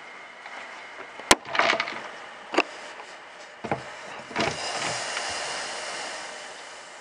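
Knocks and clunks of a Triumph T120's cast-iron twin cylinder barrel block being lifted and handled on wooden blocks with oven mitts: a sharp knock about a second in, then several lighter knocks, followed by a rustling hiss that fades.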